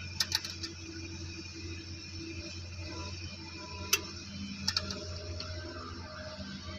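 Metal wrench clicking and clinking on the mounting bolts of a truck alternator being fitted: a quick cluster of clicks just after the start, one sharp click about four seconds in, and a few more just after. A steady low hum runs underneath.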